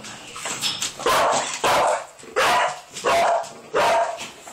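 A dog barking repeatedly in a kennel: about five loud, short barks at a steady pace.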